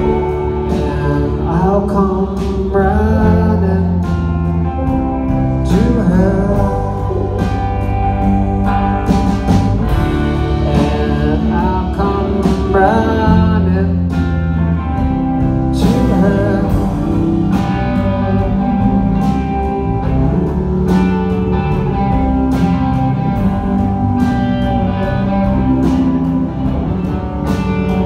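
Rock band playing live: electric guitars, bass and drums, with a lead guitar line whose notes bend up and down.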